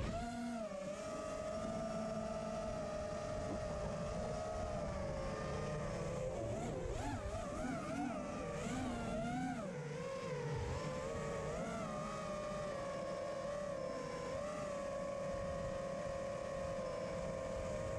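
Brushless motors of a 5-inch FPV racing quad (TBS Steele Silk 2345kv spinning HQProps 5x4x3 tri-blades) whining in flight. The pitch holds mostly steady, then rises and falls several times in the middle with throttle changes before settling again.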